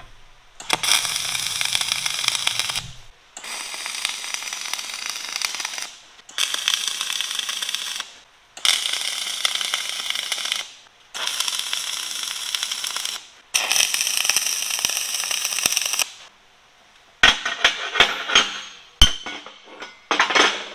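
MIG welding arc tacking steel, six crackling, hissing welds of two to three seconds each with short breaks between. Near the end come several sharp hammer strikes ringing on steel as the wedge and the tacked-on dog are knocked loose.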